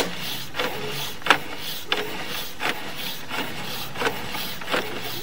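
Sewer camera's push cable being pulled back by hand through the cleanout, rubbing and scraping in even strokes about one every two-thirds of a second, with a sharp click at the very start.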